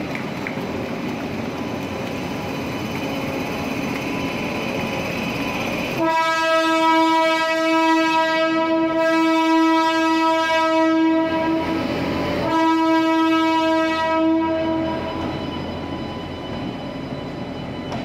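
Indian Railways WAP7 electric locomotive's air horn sounding two blasts about six seconds in: a long steady blast of about five seconds, then after a short break a second blast of about two and a half seconds.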